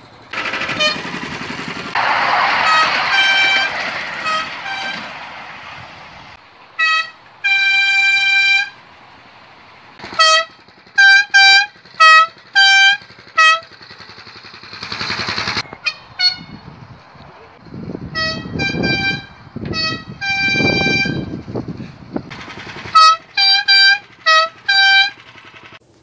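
Horn of a miniature ride-on diesel-outline locomotive sounding over and over: quick short toots that alternate between two notes, with a few longer blasts among them. Stretches of rushing noise with no pitch fall between the toots.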